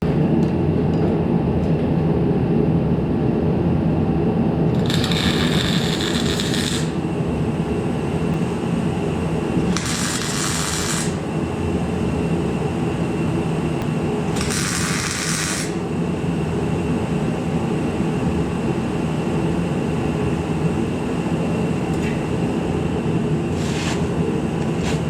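A steady mechanical hum, with a hiss three times for a second or two each and once briefly near the end.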